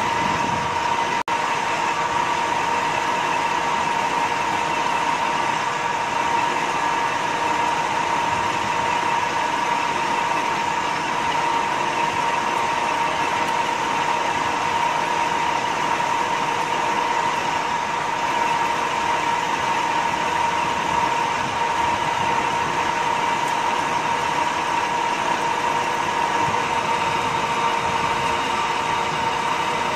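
Centre lathe running with its chuck spinning while the turning tool cuts a metal bar down in a step-turning pass: steady machine noise with a constant whine.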